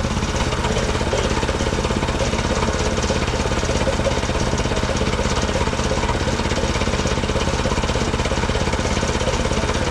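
Small gasoline engine of a Mechmaxx SM-22 sawmill running steadily at an even speed.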